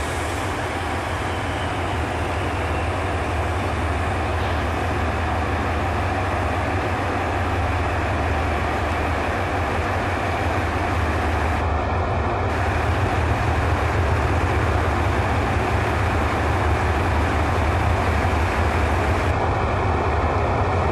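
Hitachi diesel-electric locomotive running with a steady low engine drone as it creeps at walking pace toward a passenger carriage to couple on, growing slightly louder as it comes closer.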